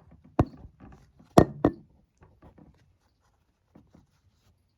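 A few sharp knocks and clicks of hard objects being handled: two loud ones about half a second and a second and a half in, a third right after, then only faint small taps.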